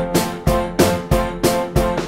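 Background music: a bouncy keyboard tune of short struck notes on a steady beat, about three notes a second.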